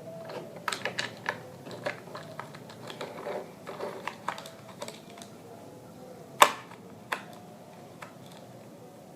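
Light plastic clicks and taps of toy truck parts and a screwdriver being handled while bolts are driven in, with one sharp, louder click about six and a half seconds in.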